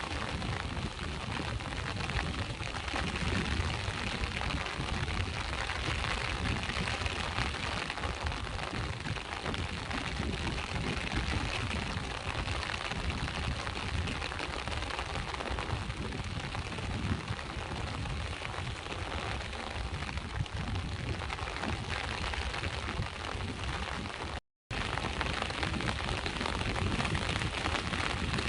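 Steady rain falling together with the rumbling wash of sea waves, a continuous noise heavy in the low end. The sound cuts out completely for a split second about 24 seconds in.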